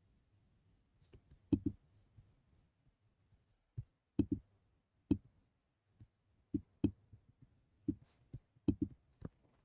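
A string of short, soft clicks and taps at irregular intervals, some close together in pairs, against quiet room tone.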